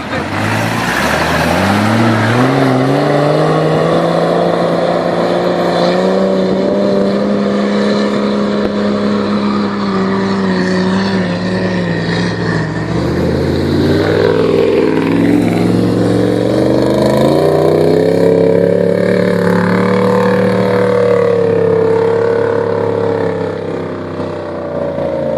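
Off-road 4x4 engine revving up hard and held at high revs under full throttle, easing off briefly about halfway through, then climbing and holding high again before dropping away at the very end.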